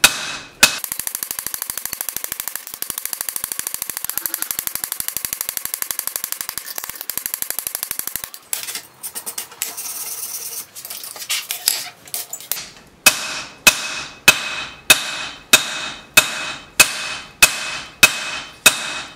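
Hand hammer striking red-hot steel on an anvil while smoothing a knife blade's bevel: a couple of blows at the start, then steady blows about two a second with a bright ring from the anvil over the last six seconds. In between comes a long run of rapid, even ticking over a steady hiss, followed by a few seconds of quieter, irregular knocks.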